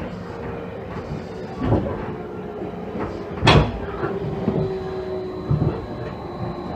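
Inside a JR Kyushu 813 series electric train car (KuMoHa 813-218): the steady hum and rumble of the car under way, with a few knocks, the sharpest about three and a half seconds in.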